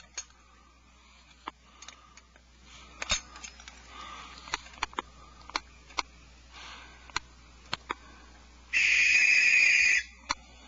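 Barn owl nestlings in the nest box. A loud rasping hiss lasts about a second near the end, the owlets' food-begging snore call, and a fainter one comes a few seconds earlier. Scattered sharp clicks and scratches run throughout.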